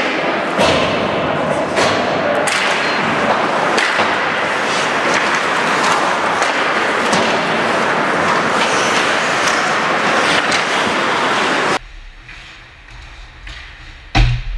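Ice hockey play: skates scraping on the ice, with sticks and puck clacking in short sharp knocks. About 12 seconds in the sound drops abruptly to a low hum, and there is one sharp knock near the end.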